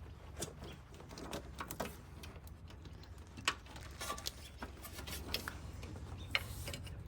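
Irregular light clicks and rattles of a battery cable being fed up behind a pickup's radiator core support.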